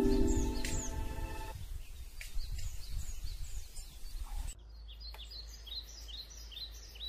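Background music fading out, then a low steady ambient hiss with small birds chirping. The birds give a quick run of short, high chirps in the second half.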